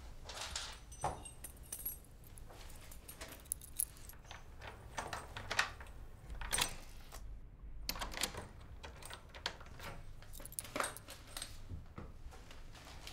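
Quiet handling sounds: a bundle of paper post rustling and a metal lever door handle clicking as a door is opened. Scattered metallic jingles and clicks, like keys, come at irregular moments, with a brief hush a little past halfway.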